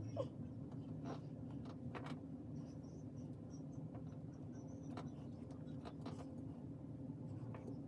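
Faint rustling and light taps of fingers pressing and smoothing a lace front wig's hairline, over a steady low room hum.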